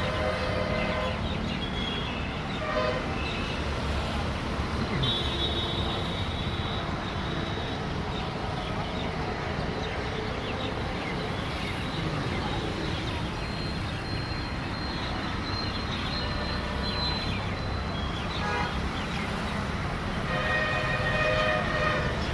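Road traffic with a steady low rumble and vehicle horns sounding several times, each held for a second or more; the longest and loudest horn is near the end.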